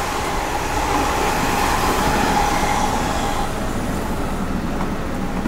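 A vehicle passing by: a broad rushing noise that swells and then fades about four seconds in, with a steady whine that stops a little before it.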